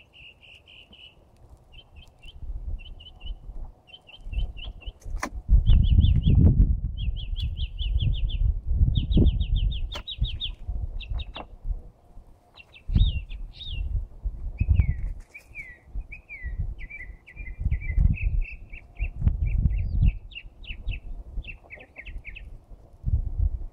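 A songbird of unidentified species singing a nearly continuous run of varied phrases: quick chirp series and rapid trills, some rising or falling in pitch. Uneven patches of low rumbling noise come and go underneath and are the loudest part.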